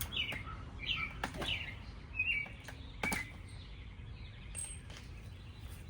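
A bird chirping, a string of short falling chirps that stop about three seconds in, with a few sharp clicks among them.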